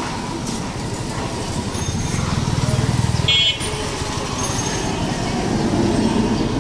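Street traffic: a passing vehicle's engine rumble swells for a second or two, ending in a short horn toot about three and a half seconds in.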